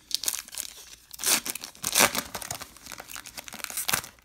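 The plastic wrapper of a Topps trading-card pack being torn open and crinkled by hand, in crackling bursts that are loudest about one and two seconds in.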